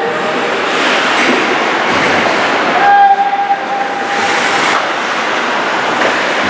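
Sports crowd noise with a steady horn blast starting a little under three seconds in and lasting about two seconds.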